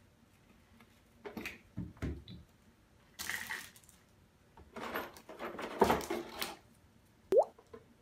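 Hands unpacking a kitchen faucet box: plastic wrapping crinkling and rustling in several bursts as parts are lifted out and set down, with a sharp knock near the end.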